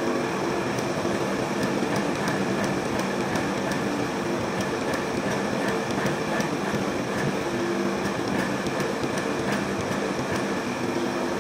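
Hydraulic forging press running steadily while it squeezes a red-hot steel billet: an even hum from its motor and pump under a constant rushing noise.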